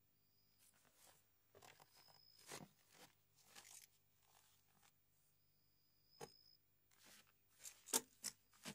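Faint rustling and crinkling of paper and a cloth bundle being handled on a desk, with a few sharp clicks near the end, the loudest about eight seconds in.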